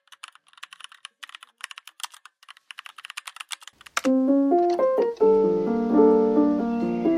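Rapid clicking of typing on a computer keyboard for about four seconds. It then gives way to background music played on electric piano or keys, with a steady hiss beneath it.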